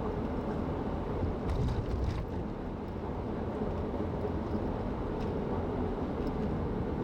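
A car being driven along the highway: a steady low rumble of road and engine noise.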